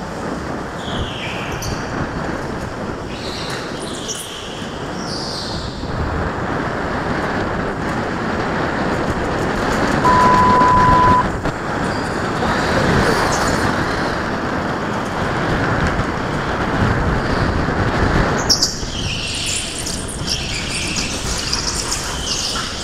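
Onboard sound of a go-kart at racing speed on a polished indoor concrete track: a steady rumble of motor and road noise, with tyres squealing through the corners during the first few seconds and again near the end. About ten seconds in, a steady high beep sounds for about a second.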